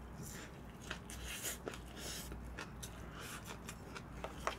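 Faint eating sounds of a bowl of bibimbap: light clicks and scrapes of a spoon in the bowl, with soft chewing.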